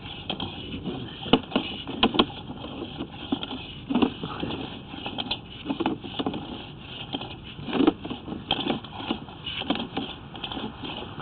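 Irregular clicks, knocks and rattles from the push cable of a sewer inspection camera being fed by hand down a drain line, over a steady hiss.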